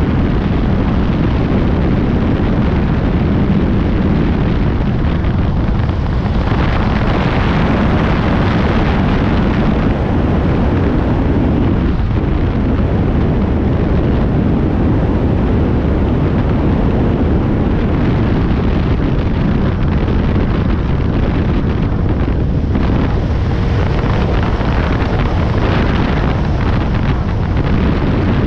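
Small high-wing light aircraft's piston engine and propeller running steadily in cruise, loud and unbroken, mixed with heavy wind buffeting on a microphone mounted outside under the wing.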